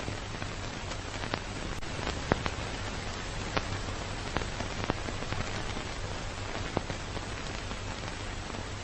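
Old-film crackle sound effect: a steady hiss with a low hum under it, and irregular pops and clicks scattered through it.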